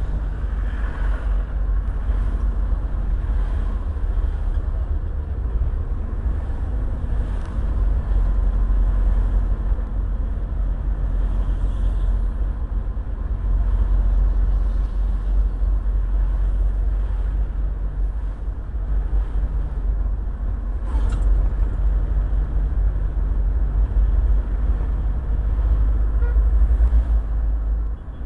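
Car interior noise while driving: a steady low rumble of engine and road, with a single brief click about three-quarters of the way through.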